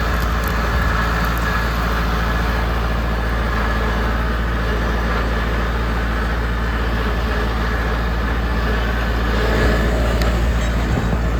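Tractor engine running steadily under load while pulling a no-till drill, heard from the operator's seat.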